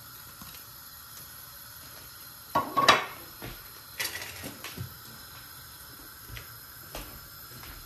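Cooking pot and metal utensil clattering: a loud rattling clatter about two and a half seconds in, then a sharp clink about a second later and a few lighter clinks.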